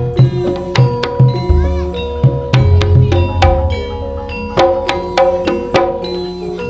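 Traditional Madurese ensemble music accompanying a kuda kencak dance: hand drums struck in a busy rhythm over sustained, ringing gong-like tones.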